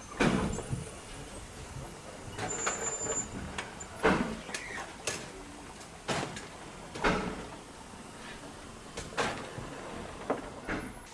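Narrow-gauge steam train on the move: a steady rumble broken by irregular sharp thumps and hissing bursts, roughly one every second or two.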